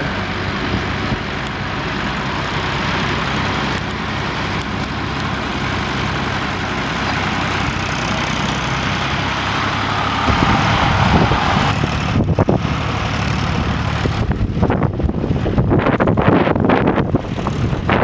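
Vintage tractor engine running steadily as the tractor drives across a stubble field. Irregular gusts of wind buffet the microphone through the second half.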